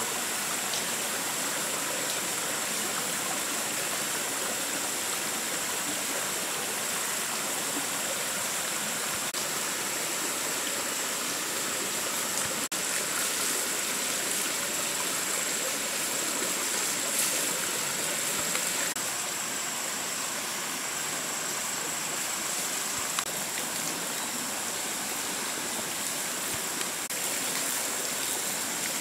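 Steady rush of running water: a forest stream, with water pouring from a bamboo pipe and splashing onto the rocks.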